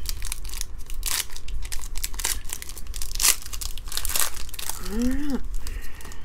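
Foil wrapper of a trading card pack being torn open and crinkled by hand, a dense run of irregular crackles and rips.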